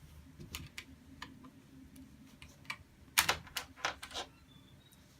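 Scattered light plastic clicks and taps from handling a Logitech wireless keyboard, with a run of sharper clicks about three seconds in.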